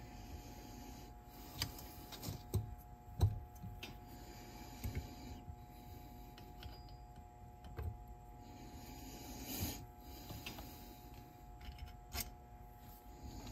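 Faint, irregular clicks and taps from hands handling the parts of a cassette deck's tape transport, the sharpest a little after three seconds in.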